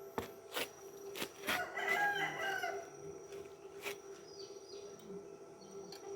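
A rooster crowing once, one arched call of a little over a second, with a few sharp clicks just before it.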